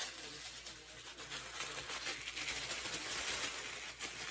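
Tissue paper rustling and crinkling as it is pulled out and unfolded by hand, louder from about halfway through.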